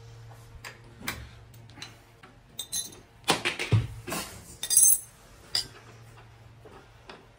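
Metal bicycle parts and tools clinking and knocking during assembly by hand, with a burst of louder clattering about three to five seconds in.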